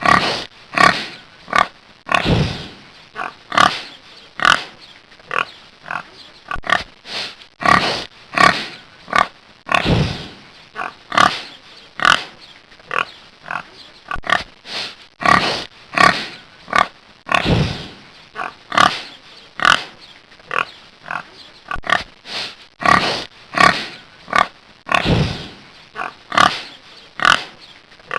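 Pig grunting: a steady run of short grunts, one or two a second.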